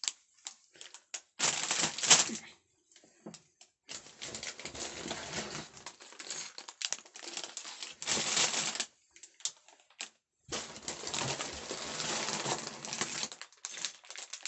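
Clear plastic bags of LEGO bricks being picked up, handled and set back down: the plastic crinkles and the loose bricks inside clatter. It comes in several bursts of a second or more, with short clicks between them.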